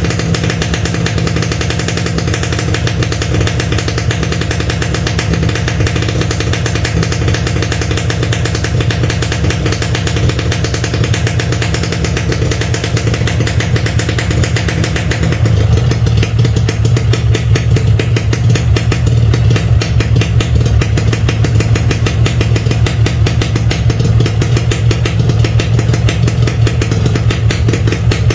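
Yamaha RX-King's air-cooled single-cylinder two-stroke engine running steadily on a cold start, with the choke pulled. About halfway through the note changes, becoming deeper and a little louder.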